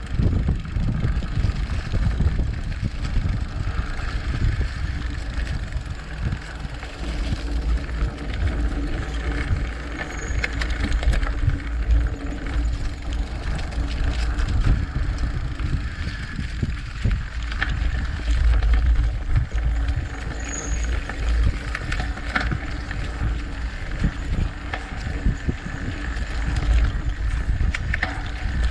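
Mountain bike with wide knobby tyres rolling along a dirt singletrack, heard from a camera mounted on the bike. Wind rumbles steadily on the microphone, and the tyres crunch over dirt and leaves while the bike knocks and rattles over bumps.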